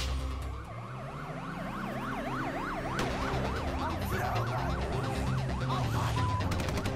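Siren sweeping fast up and down, about three sweeps a second, over background music with steady low notes.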